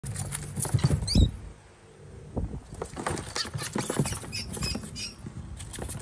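Scuffling on a cardboard box: quick scratches, taps and soft thumps as a small bird flutters and a cat paws at it, with a few short high chirps about a second in and again near five seconds.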